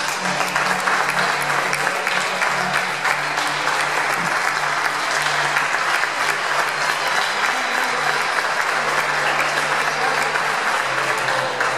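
Crowd applauding steadily, a dense patter of many hands clapping, with music playing faintly underneath.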